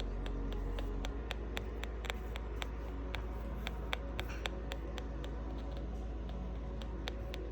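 Steady low hum from a machine, with sharp clicks repeating about three to four times a second over it.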